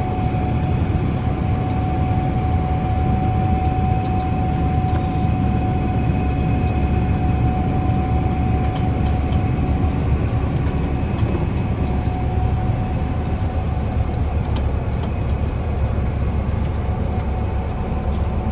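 Steady engine drone of a running vehicle, with a constant whine held throughout.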